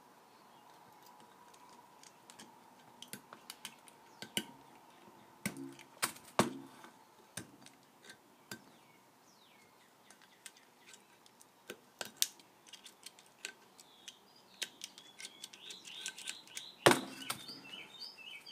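Scattered light metallic clicks and knocks of a steel Kohler flywheel being tilted, set back down and worked on against a steel workbench. Birds chirp faintly near the end.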